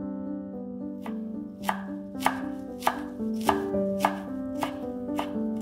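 Chef's knife chopping fresh dill on a wooden cutting board: steady, even strikes a little under twice a second, starting about a second in, over background music.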